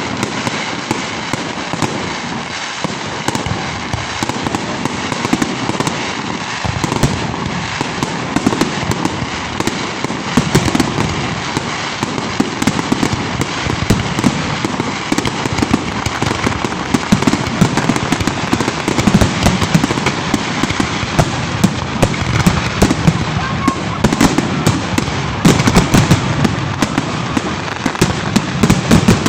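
Fireworks going off in a continuous dense crackle of many small bangs and pops, growing busier and louder from about ten seconds in.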